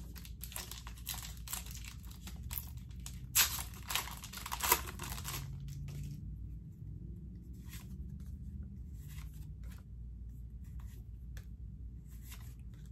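Foil wrapper of a Pokémon TCG booster pack crinkling and tearing open, with a few sharp rips, for about the first six seconds; after that only soft, scattered flicks of the cards being handled.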